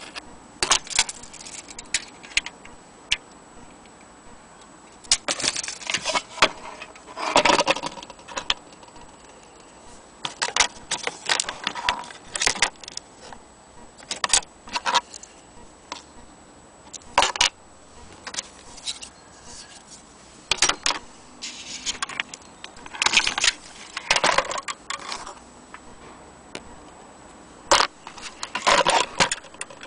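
Irregular metallic clinks, taps and rattles from an antique Gustav Becker Vienna clock movement and its brass-fitted pendulum being handled and shifted on a tabletop, coming in short bursts of clatter every few seconds.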